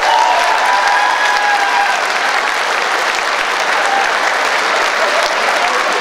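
Large audience applauding steadily in a big hall, a few voices calling out over the clapping in the first couple of seconds.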